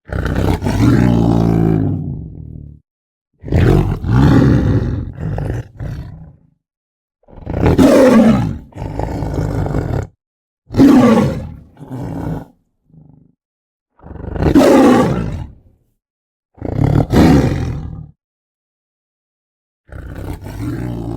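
Smilodon (saber-toothed cat) roar sound effects: a string of about seven big-cat roars and snarls, each one to three seconds long, with dead silence between them.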